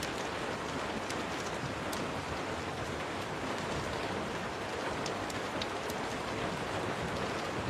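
Steady rain falling, an even hiss, with a few sharp ticks scattered through it.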